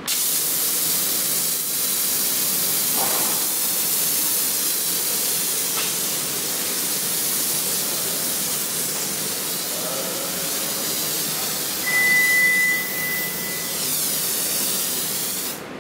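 Hissing spray of a homemade automatic aerator foamer wand laying detergent foam onto a car's body panels, steady throughout and cutting off sharply at the end. A thin steady whistle sounds briefly about three quarters of the way through.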